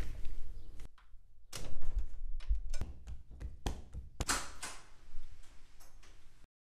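A series of irregular knocks and thuds with rustling between them, the loudest a couple of seconds in and again past the middle. The sound cuts off abruptly near the end.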